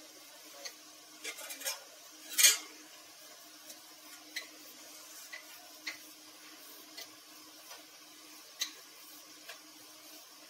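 Wooden rolling pin rolling out an oiled puri on a rolling board, with scattered light clicks and taps as the pin meets the board and one louder knock about two and a half seconds in. A faint steady hum runs underneath.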